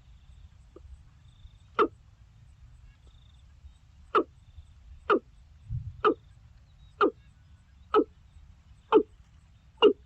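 Watercock calling: a series of short, gulping notes, one near the start, then about one a second, quickening near the end.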